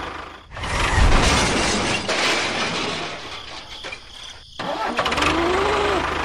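Tractor engine sound running with a low, even chug. It rises loud about half a second in, as if revving, eases off, cuts out briefly near four and a half seconds, then chugs steadily again.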